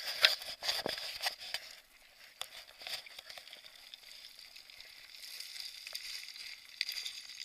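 Loose scree crunching and rattling under running feet on a steep rocky slope, with a cluster of sharp stone clicks and knocks in the first second or so, then a steadier hiss of sliding gravel.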